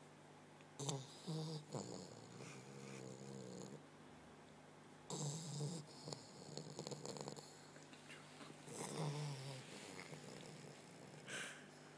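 Puggle puppy snoring as it falls asleep: a rough snore on each breath, several in a slow, uneven run.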